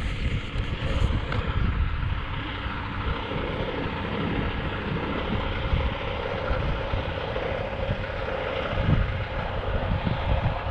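Wind buffeting the camera microphone in gusty, uneven rumbles, with a steady mid-pitched hum underneath for several seconds in the middle.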